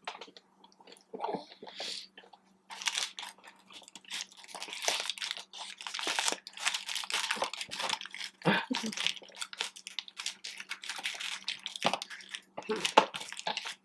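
Chewing and crunching of fried boneless chicken wings and fries, with the paper liner of a fry basket crinkling as it is handled.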